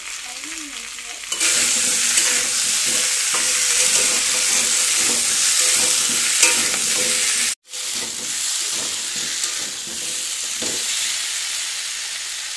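Elephant foot yam cubes with tomato frying in oil in a steel wok, sizzling as a metal spatula stirs and scrapes them: the vegetables being sautéed dry in the spices. The sizzle turns louder about a second and a half in and cuts out for a moment about halfway through.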